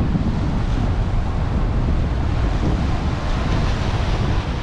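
Rough, choppy ocean surf washing and breaking against a concrete seawall, under strong wind buffeting the microphone with a steady low rumble.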